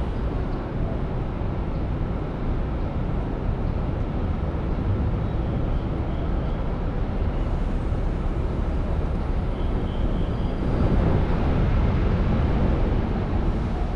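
Steady low rumble of city traffic, growing a little louder for a few seconds about three quarters of the way through.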